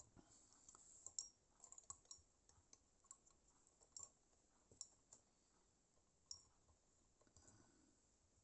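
Faint, scattered clicks and light taps of small objects being handled on a workbench, a dozen or so irregular ticks with the loudest about a second in.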